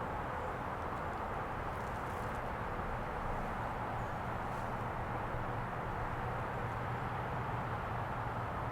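Steady outdoor background rush with no distinct events: a low, even ambience of open country.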